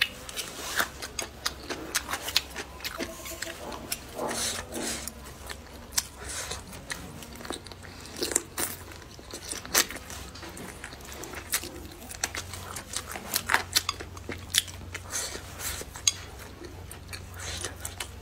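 A person biting and chewing green chili peppers and snow peas, with many quick, irregular, crisp crunches.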